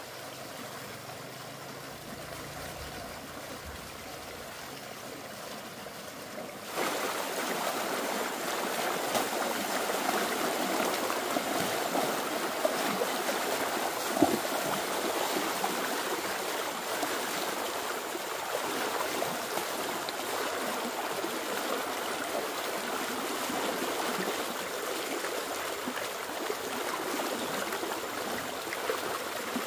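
Steady rushing water, an even hiss that steps up clearly louder about seven seconds in and stops abruptly at the end.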